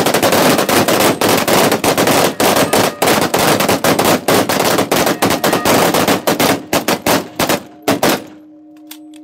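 Sustained rapid automatic gunfire, fired as a memorial salute. It stops abruptly about eight seconds in, leaving a large bronze bell sounding a steady, ringing hum.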